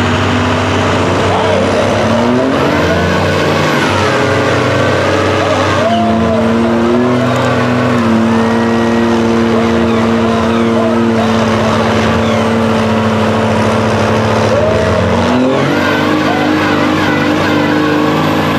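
Heavy diesel engines, led by the Dodge mega truck's Cummins, running hard under load in a tug of war. Their pitch climbs about two seconds in, holds steady for several seconds, then climbs again near the end.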